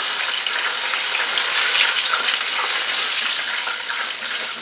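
Hot oil sizzling steadily with fine crackling as flour-and-cornflour-coated fusilli macaroni deep-fry, while a wire-mesh skimmer stirs through the oil and scoops them out.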